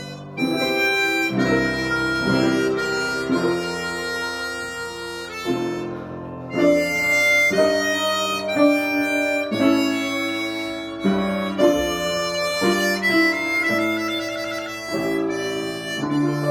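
Harmonica playing a Baroque melody in sustained, clear notes, accompanied by piano.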